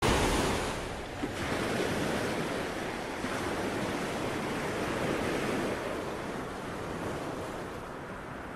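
Ocean surf: waves breaking in a continuous rush. It is loudest at the very start and eases a little toward the end.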